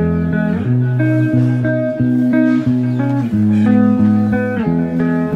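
Background music: guitar-led instrumental with a steady succession of plucked notes and chords.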